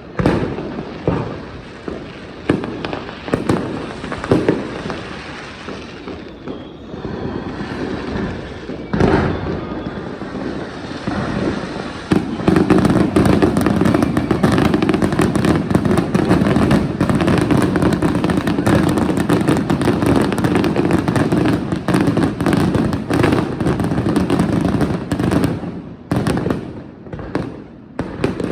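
Fireworks bursting: separate bangs for the first dozen seconds, then a dense, unbroken barrage of bangs and crackle for about fourteen seconds, thinning back to separate bangs near the end.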